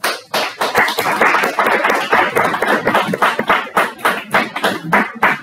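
A small group of people clapping, a dense run of irregular claps that stops near the end.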